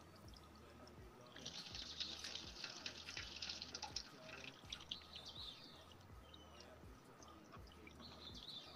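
Dry corn husk flowers and their wire stems rustling and crackling as they are handled and pushed into a pot. The rustling lasts about three seconds, starting about a second in.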